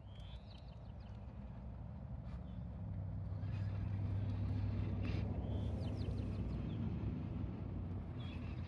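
A low, steady engine drone that builds up over the first few seconds and then eases slightly, under the soft scuffing of a small dog pushing dirt and pine needles with its nose to bury a bone; a few short bird chirps.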